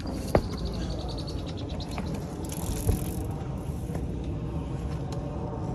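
Footsteps on a concrete walkway with handling noise from carried magnet-fishing gear, a bucket and a coil of rope, over a steady low rumble. A quick run of ticking clicks fills the first two seconds, with a sharp knock near the start and another about three seconds in.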